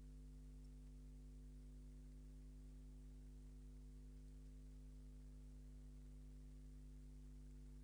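Steady low electrical hum with a few higher overtones over faint hiss, unchanging throughout, with no other sound.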